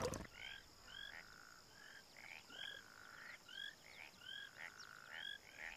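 Frogs calling at a pool: short arched chirping calls, about two a second, over a faint steady high-pitched hum.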